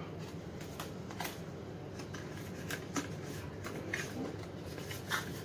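Scattered light rustles and clicks of takeout food packaging being handled and opened.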